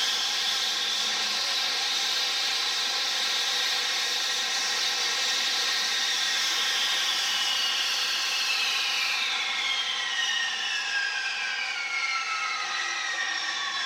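Jet aircraft engine noise, a loud steady rush with a high turbine whine that begins falling steadily in pitch about two thirds of the way through as the jet passes and moves away.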